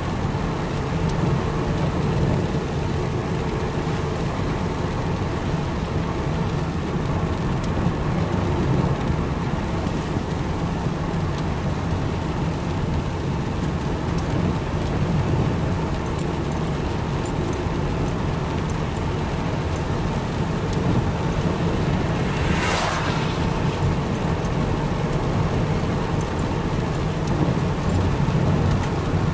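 Steady low rumble of a car's engine and tyres on a wet road, heard from inside the car, with faint ticks of raindrops hitting the car. About three quarters of the way in there is one brief swish, a windscreen wiper sweeping the glass.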